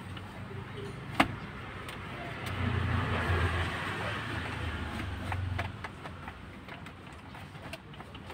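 A sharp plastic click as the universal armrest box is pressed onto the car's centre console, with a few faint knocks from handling it. A low rumble swells in the middle for about three seconds and then fades.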